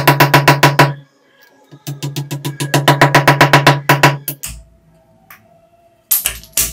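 Small hammer tapping wooden plugs into drilled holes in a wall, in quick, even strikes about eight to ten a second with a low ring. One run stops about a second in, a second runs from about two seconds to four and a half seconds, and two louder knocks come near the end.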